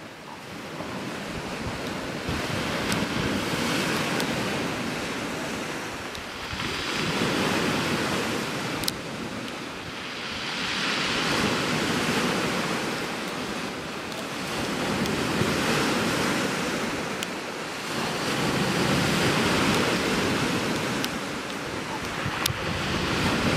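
Sea waves breaking and washing over a shingle beach, the surf swelling and fading about every four seconds.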